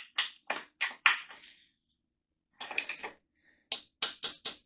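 Hand tools working the rear axle and chain-adjuster nuts on a motorcycle: a series of short, sharp clicks and metallic taps, about four in the first second, then a pause of about a second, then another quick run of them.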